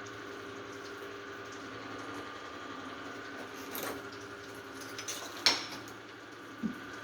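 A steady hum with a few short knocks and clicks, the sharpest one about five and a half seconds in.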